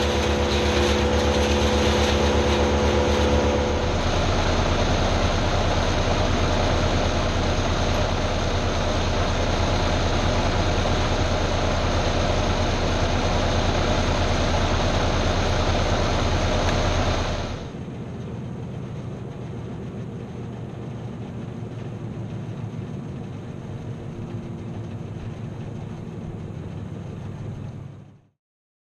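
Engine-driven machinery running steadily: an even engine hum for the first few seconds, then a louder, noisier machine sound that drops abruptly to a quieter, rougher running sound about two-thirds in, before cutting off near the end.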